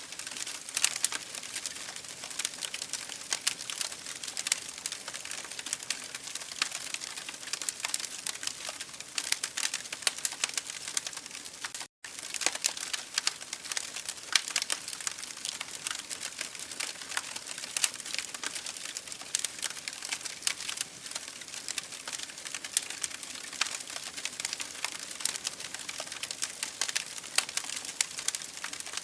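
Wood fire burning in an open fireplace: a dense, irregular run of small crackles and sharp pops over a soft hiss. The sound breaks off for a split second about twelve seconds in.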